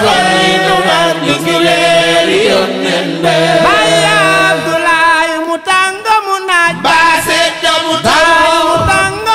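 Voices singing a Wolof Layène religious chant, a held low note running under the melody for about the first five seconds.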